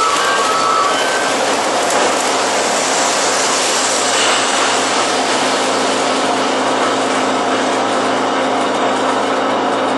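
Lionel model trains, among them a GG1 electric locomotive, running on metal track: a steady rushing rumble of wheels and motors.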